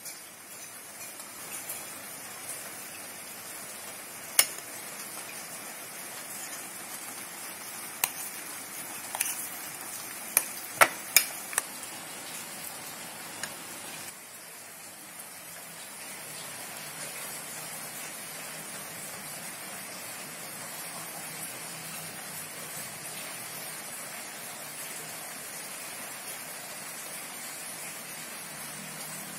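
Metal spoon stirring mashed boiled egg and mayonnaise in a glass bowl: soft wet mixing sounds with about seven sharp clinks of the spoon against the glass, most of them close together ten to twelve seconds in. From about halfway on, a steady soft hiss.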